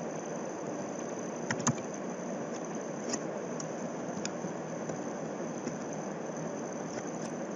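A few computer mouse clicks, the loudest pair about one and a half seconds in and fainter single clicks later, over a steady background hiss.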